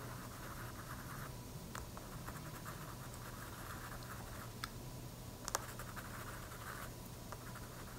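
White wax crayon scratching across cold-press watercolor paper in short stretches of small squiggly strokes, faint, with a few light ticks between them.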